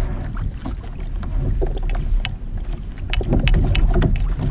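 Wind noise on an action-camera microphone on a kayak at sea, with scattered knocks and rustles that grow thicker in the second half as a heavy fish is hauled around onto the kayak.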